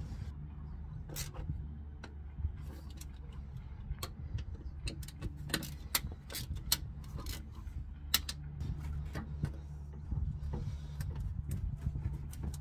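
Scattered plastic clicks and knocks as an intake pipe is worked and pushed back onto a VW Crafter's turbocharger housing, over a steady low hum.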